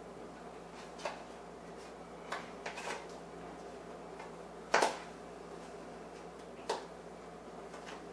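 A utensil clicking and knocking against a small plastic container while cream cheese and cheddar are mixed in it: several separate, irregularly spaced clicks, the loudest about five seconds in.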